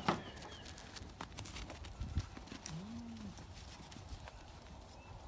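Goats milling about: scattered sharp hoof knocks, and a short low goat call about three seconds in, with faint bird chirps.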